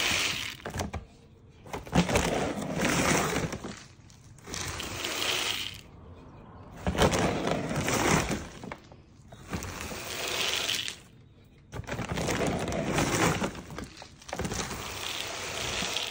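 Pelleted chicken feed poured from a container into a plastic chicken feeder, pellets rattling in about seven pours of a second or two each with short pauses between.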